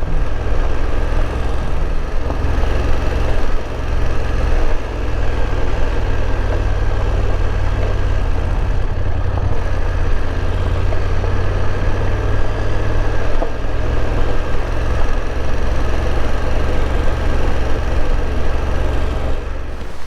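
BMW F850GS parallel-twin engine running under way, with steady wind and road noise over it; it cuts off at the very end as the bike stops.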